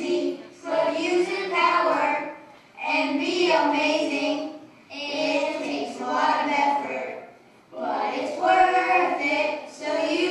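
Group of children singing or chanting together in phrases of about two seconds, with short breaks between them.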